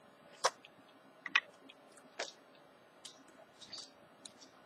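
Pages of a paperback coloring book being turned by hand: about six short, sharp paper snaps and clicks, spread out about one a second.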